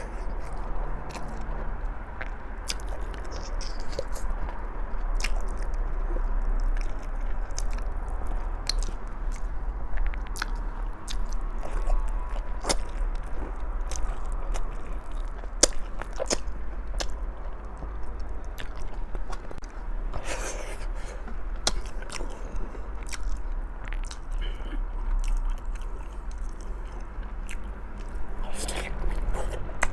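Close-up eating sounds of someone chewing and biting into stewed pork trotter (balbacua), with many sharp wet clicks and smacks throughout, over a faint low steady hum.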